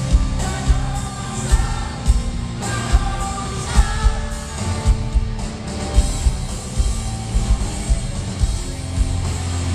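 Rock song with singing over a steady, heavy drum beat.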